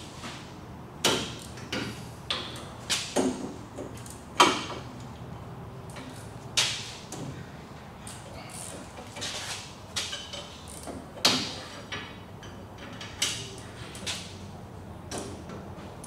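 Irregular metallic clicks and knocks from a long bar working the threaded carrier-bearing adjusters of a rear differential. The bar loosens one adjuster and tightens the other to push the carrier into the pinion and set backlash. The knocks come in a quick cluster in the first few seconds, then more sparsely, with the loudest about four seconds in and again about eleven seconds in.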